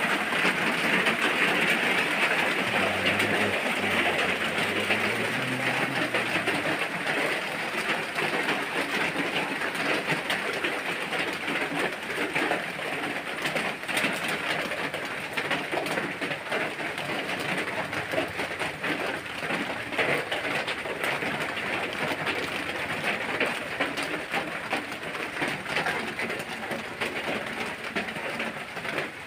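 Steady rain: an even hiss with many small ticks of drops.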